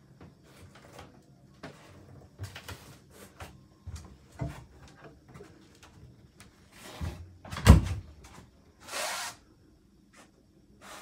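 Scattered light knocks and clicks in a small room, with one loud thump about three-quarters of the way through and a short hiss about a second later.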